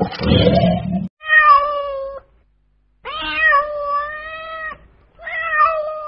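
A domestic cat meowing three times, long drawn-out meows with the middle one the longest, after the tail end of a lion's roar that stops about a second in.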